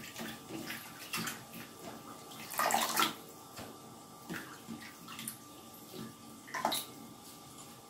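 Hands lifting mint leaves out of a bowl of water: water splashing and dripping, with the wet leaves rustling as they are set down. The loudest splashes come about two and a half seconds in and again near the end.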